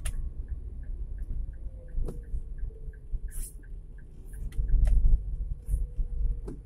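Low engine and road rumble heard from inside a car on a wet road, growing louder about two-thirds of the way through. A light ticking runs about three times a second for the first few seconds, with a few brief high hisses and clicks.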